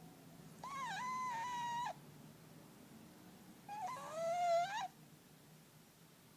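Fat house cat snoring in its sleep, giving two high whistling snores about three seconds apart, each lasting about a second. The second is the louder, dipping then rising in pitch.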